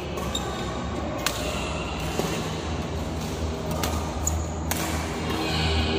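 Badminton rackets hitting a shuttlecock during a doubles rally: a few sharp, short smacks, one about a second in and more between four and five seconds, over a steady low background hum.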